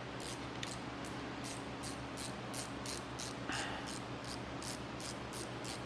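Ratchet wrench being worked back and forth, its pawl giving a short burst of clicks on each swing, about three swings a second, over a steady low hum.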